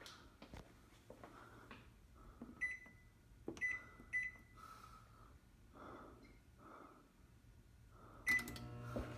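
GE microwave oven's keypad beeping as it is set: four short high beeps, with soft clicks and knocks between them. Right after the last and loudest beep, near the end, the oven starts running with a steady low hum.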